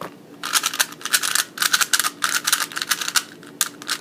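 A Rubik's cube being turned rapidly during a speedsolve: a fast run of plastic clicks and clacks from the layers. It starts about half a second in and thins briefly a little past the three-second mark.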